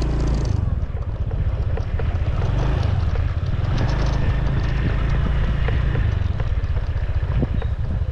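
Small motor scooter engine running as it rides slowly along a dirt track, with wind rumbling on the microphone.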